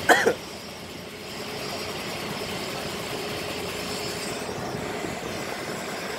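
Dump truck engine idling steadily.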